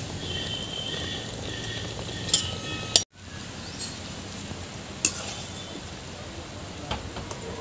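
A steel ladle scooping boiled penne out of a metal pot of hot water, with a few metal clinks against the pot, the loudest about three seconds in, over a steady low hiss.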